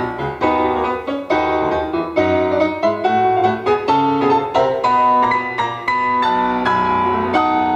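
A solo piano recording played back through a Revox Model 40 valve amplifier and loudspeaker, heard through a recorder's built-in microphones: a quick, steady run of piano notes and chords.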